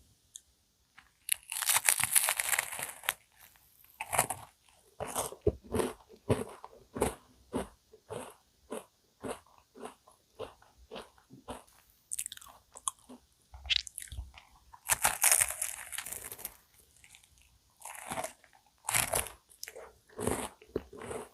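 Close-miked biting and chewing of a crisp cookie-crusted cream puff: two loud crunchy bites, about two seconds in and again about fifteen seconds in, each followed by a run of smaller crunching chews.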